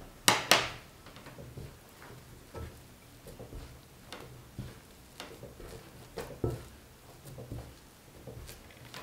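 Hand kneading shaggy, crumbly egg-and-flour dough in a ceramic bowl, pressing it into a ball: irregular dull thumps and soft knocks of dough and knuckles against the bowl, with two sharp knocks in quick succession near the start.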